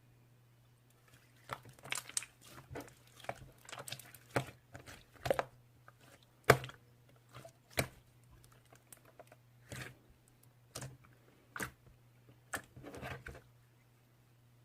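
Clear slime being squished and worked by hand: irregular sticky pops and crackles, the loudest about six and a half seconds in, over a steady low hum.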